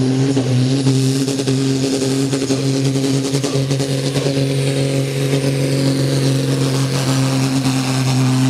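Ford 8970 tractor's tuned six-cylinder turbodiesel running flat out at steady high revs under full load, pulling the weight-transfer sled. Its pitch holds level throughout.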